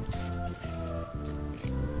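Background music: a backing track of held notes and chords changing about every half second.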